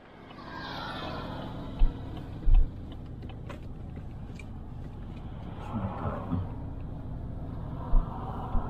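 Steady low rumble of a GMC pickup truck driving slowly, heard inside the cab. A few short low thumps stand out: one just under two seconds in, another half a second later, and one near the end.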